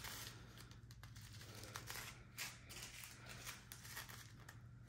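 Faint crinkling and light clicking of small plastic zip-lock bags of diamond-painting drills being handled.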